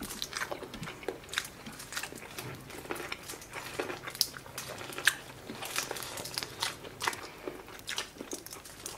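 Close-up eating sounds: teeth biting kernels off boiled corn on the cob and chewing, with shrimp shells being peeled, an irregular run of crisp clicks and crunches.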